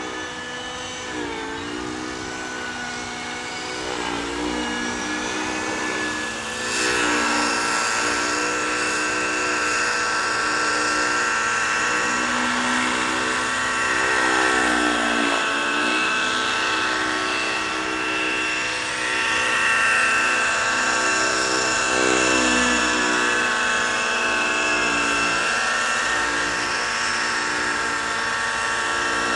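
Freya 90 radio-controlled model helicopter in flight, its glow engine and rotors running with a high whine. The engine's pitch dips and comes back up again and again as it manoeuvres. It gets louder about seven seconds in.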